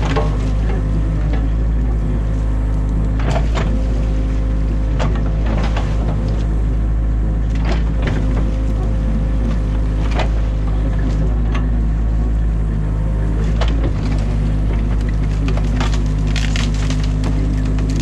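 Excavator diesel engine running steadily, heard from inside the cab, with repeated sharp cracking and snapping of branches as the bucket tears apart a beaver dam. A cluster of cracks comes near the end.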